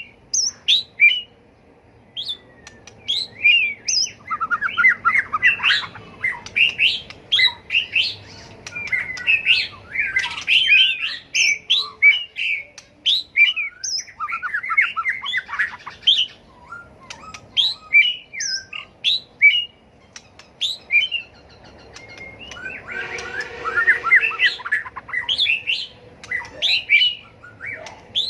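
White-rumped shama in full competitive song: bursts of varied whistled phrases and rapid chattering runs, separated by short pauses.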